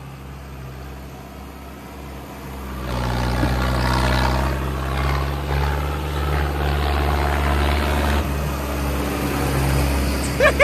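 Tractor diesel engine running lightly, then from about three seconds in working hard under load as the two-wheel-drive tractor climbs a steep dirt mound, with the hiss of the spinning rear tyres throwing dirt; the sound drops back just before the end.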